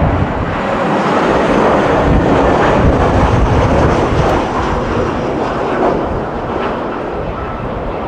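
Jet engines of an Airbus A321-211 airliner on final approach, a loud steady rush of engine noise as it flies past. The noise peaks a couple of seconds in and eases a little near the end as the plane moves away toward the runway.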